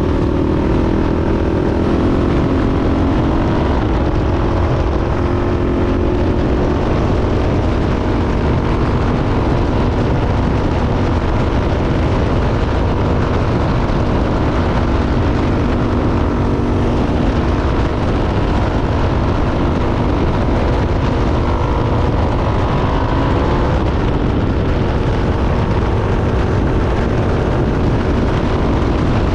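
Yamaha Raptor 660R's single-cylinder four-stroke engine running steadily under way, its note shifting up and down with the throttle over a constant low rumble.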